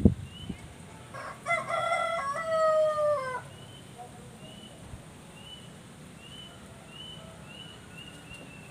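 A rooster crowing once, a long call of about two seconds that falls in pitch at the end. Short faint high chirps repeat in the background, and a thump sounds at the very start.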